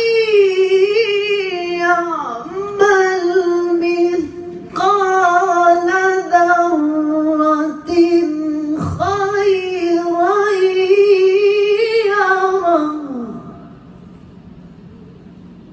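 A woman's voice reciting the Quran in a melodic, tajweed chant into a microphone. The phrases are long and drawn out, with wavering, ornamented pitch and brief breaths between them, and the voice falls away about 13 seconds in.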